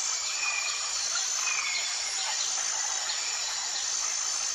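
Nature ambience: a steady high insect or cricket drone, with a couple of short bird whistles early on.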